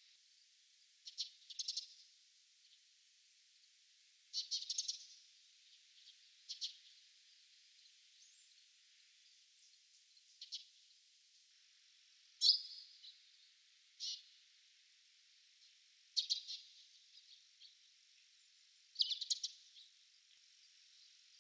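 A small songbird giving short calls in quick clusters, about eight times and a few seconds apart; one call near the middle starts with a falling whistle.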